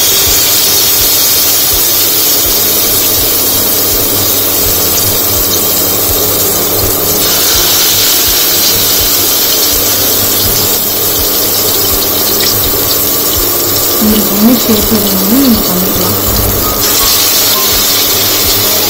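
Potato hash brown patties shallow-frying in hot oil in a steel pan: a loud, steady sizzle that brightens about seven seconds in and again near the end.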